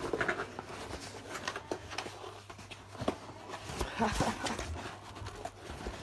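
Retail packaging crackling and clicking as it is pried and pulled at by hand, an irregular run of small cracks and rustles, with a brief vocal sound about four seconds in.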